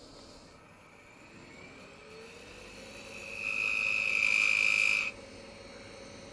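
Wood lathe motor spinning up with a rising whine that then holds steady. About three seconds in, a tool cutting the spinning maple blank gives a loud, high, steady tone with hiss for about two seconds, which stops suddenly as the tool comes off the wood.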